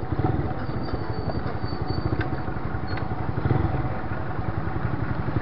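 Motorcycle engine running steadily, with a fast, even firing pulse.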